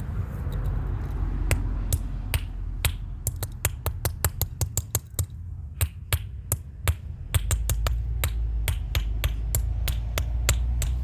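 Repeated sharp knocks of a hard object striking a plastic RFID lock keypad, irregular at roughly two or three a second, over a steady low hum.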